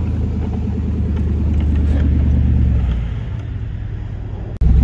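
Engine of a white Chevrolet Z71 pickup with a front snowplow running steadily as the truck pushes snow. It gets quieter about three seconds in, then breaks off abruptly near the end, where a louder engine sound begins.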